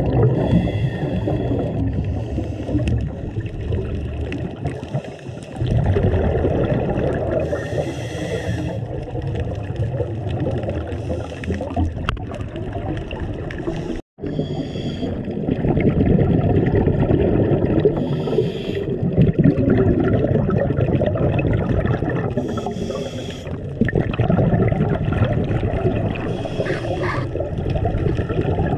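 Underwater recording: scuba divers' exhaled air bubbles gurgling out in bursts every few seconds over a steady low rumble of moving water.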